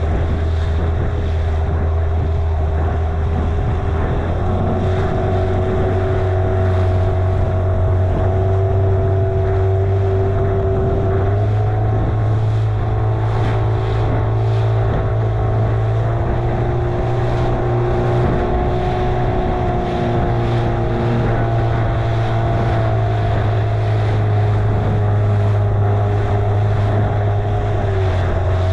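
Small boat's outboard motor running steadily under way, its pitch shifting slightly up and down a few times.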